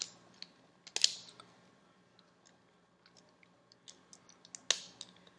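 Small clicks and taps of a partly disassembled Samsung Galaxy S4's plastic and metal parts being handled, with sharper clicks about a second in and near the end and faint ticks between.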